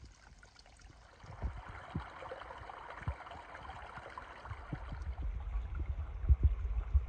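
Water running over rocks in a shallow mountain creek, swelling up about a second in and growing louder, with scattered low thumps underneath.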